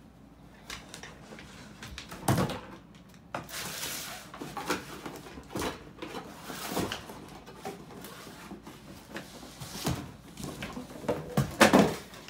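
Dog rooting in cardboard boxes for hidden food: cardboard scraping, rustling and knocking against the wooden floor, with sharp knocks about two seconds in and again near the end.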